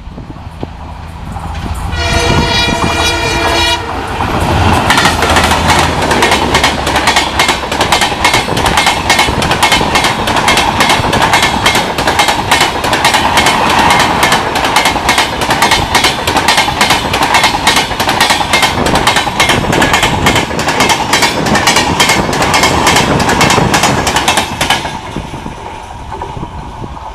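A diesel locomotive sounds its horn for about two seconds over its low engine rumble. Then the train passes at speed for about twenty seconds, its wheels clattering rapidly over rail joints and crossover points. The clatter cuts off suddenly near the end.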